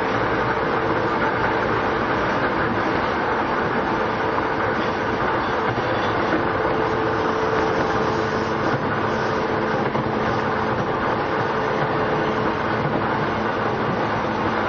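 Running sound inside a JR East E233-5000 series electric train travelling at steady speed: continuous wheel and rail noise with a steady tone underneath.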